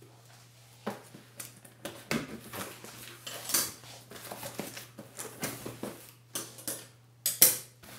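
A cardboard box being cut open with scissors and handled: tape and cardboard flaps scraping and rustling in short irregular bursts, with a loud sharp knock about seven seconds in.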